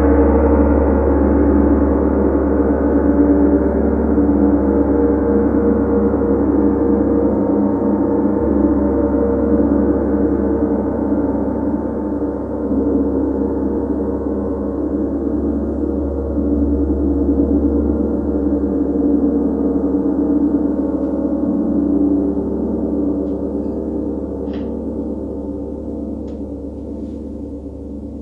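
Large tam-tam gong played softly with a soft mallet: a deep, dense, sustained ring of many tones that swells and ebbs, fading gradually over the last several seconds.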